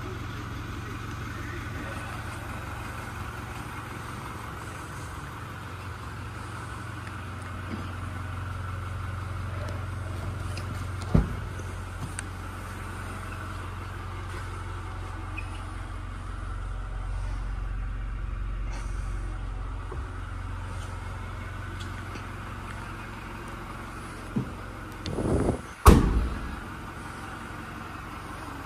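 Tailgate of a Toyota Fortuner SUV swung down and slammed shut near the end, a single loud bang, over a steady low hum. A sharp click comes about eleven seconds in.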